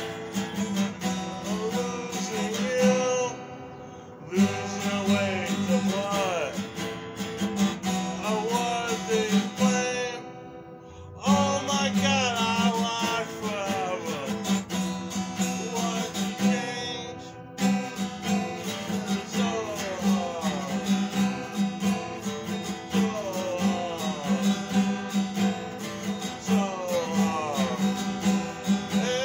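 Acoustic guitar played with strummed chords, breaking off briefly about four, eleven and seventeen seconds in.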